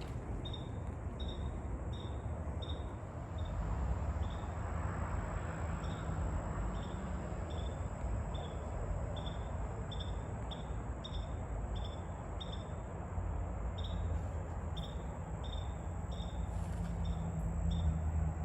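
A cricket chirping evenly, about two chirps a second, over a steady low rumble of traffic, which swells briefly about four seconds in as a vehicle passes.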